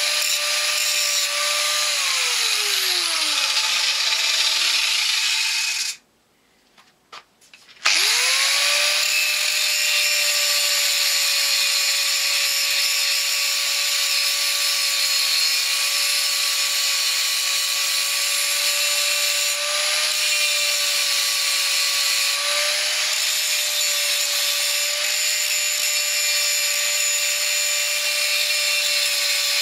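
Angle grinder grinding a metal sprocket, its motor running at a steady pitch. About two seconds in it is switched off and winds down with a falling pitch, goes briefly quiet, then is switched on again, spins up quickly and grinds on steadily.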